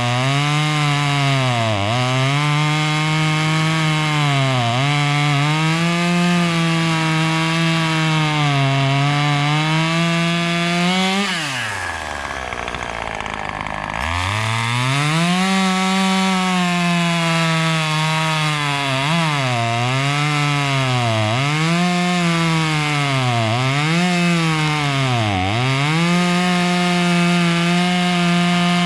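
Husqvarna 540 XP Mk III two-stroke chainsaw running at full throttle while cutting wood, its pitch dipping again and again as the chain loads up in the cut. About eleven seconds in it drops back to idle for a few seconds, then revs up again and carries on cutting.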